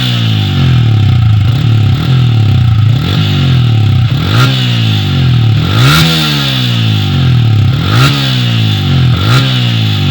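Yamaha Sniper 155's single-cylinder four-stroke engine, heard through an UMA Racing version 2 aftermarket exhaust with a re-elbowed pipe. It idles between about five quick throttle blips, each rev rising fast and sliding back down to idle.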